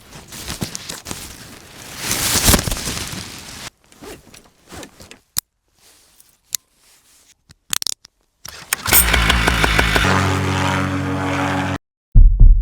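Paramotor workshop sounds in sequence: a scraping, rushing noise for the first few seconds, a few sharp clicks, then a machine running at a steady pitch for about three seconds before cutting off abruptly.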